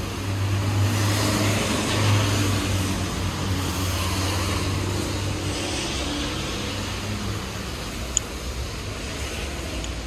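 A motor vehicle passing on the wet street: a low engine hum with tyre hiss from the wet asphalt, swelling over the first couple of seconds and fading away after about six. A brief sharp click about eight seconds in.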